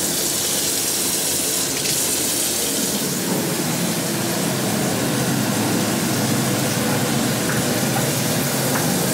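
Steady watery hiss and bubbling of pots boiling on a gas stove, the lidded pot at a rolling boil over lit burners.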